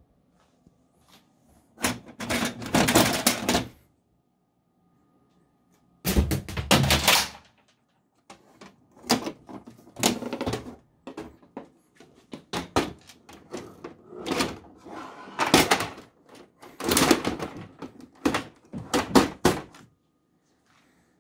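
Hard plastic knocks, bumps and scraping as a small Epson all-in-one printer is handled and set on the glass of a larger multifunction copier, in irregular bursts with short pauses. The two loudest bursts of clatter come about two and six seconds in.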